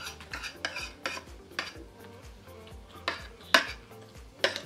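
Cutlery clinking and scraping against a plate in quick, uneven strokes, with three sharper clinks in the second half.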